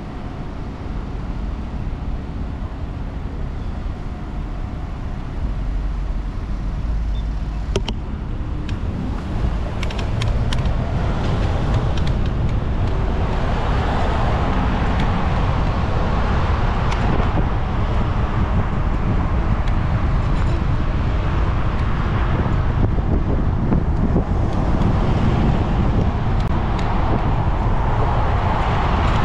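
City street traffic heard from a bicycle, with a few sharp clicks about eight to ten seconds in; from about twelve seconds in, as the bike gets moving, a louder steady rush of wind and passing cars.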